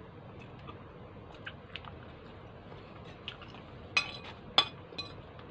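Faint chewing of bread and spaghetti, then a metal fork clinking against a plate three times near the end. The clinks are the loudest sound.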